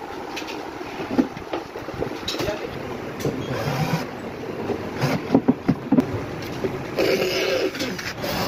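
Cordless drill driving screws to fix a concealed cabinet hinge, with several sharp knocks about five seconds in, over steady workshop machine noise.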